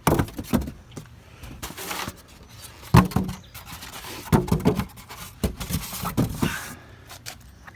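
Styrofoam packing and a cardboard box being handled: irregular scraping, rustling and knocking, with a sharp thump about three seconds in.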